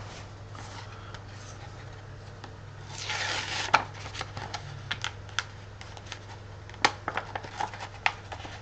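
Pokémon trading cards being handled: a brief rustle about three seconds in, then a run of light clicks and taps as cards are flipped and set down, over a steady low hum.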